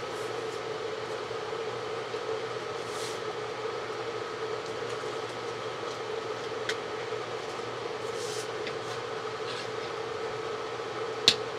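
Steady machine-like background hum with a faint tone, under small plastic handling ticks as a USB soldering iron is fitted together. Near the end comes one sharp click as the plugged-in iron is set down on its power bank.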